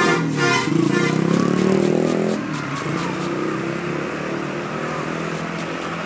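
A bus's multi-tone telolet horn ends its pulsing tune in the first moments. Then the bus engine runs up in pitch as the bus pulls past, easing off to a steadier, quieter run after about two and a half seconds.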